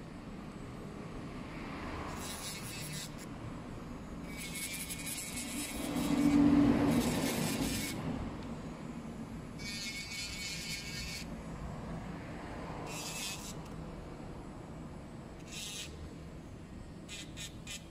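Electric nail drill grinding down acrylic nails in short passes, a high scraping whir of a second or two each, about seven times. A louder low rumble swells and fades about six seconds in.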